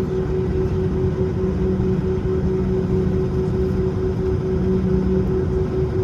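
Cabin noise inside an Airbus A321-231 in flight under power from its IAE V2500 turbofans: a steady, loud rush with a constant low engine hum.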